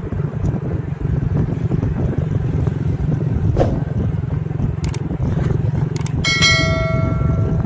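Wind rushing over the microphone on a moving motorcycle, a steady low rumble, with a few sharp clicks. About six seconds in a bell-like ringing tone starts and fades over a second or so.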